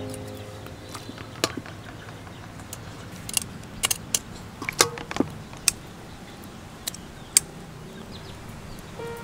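Metal tongs clicking and tapping against a wire grill rack as slices of raw marinated offal are laid out on it: scattered sharp clicks, the busiest stretch in the middle, over a faint steady background.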